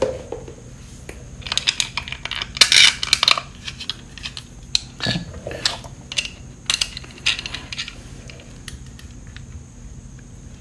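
Metal clicking and clinking from a T-handle Allen wrench and steel bolts as the bolts are started into a motorcycle engine side cover, in three short spells about a second or two long.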